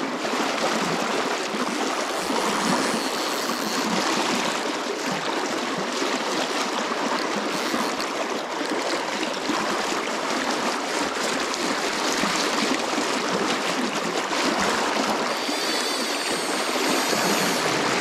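Fast creek water rushing over a riffle close by, a steady, even rush.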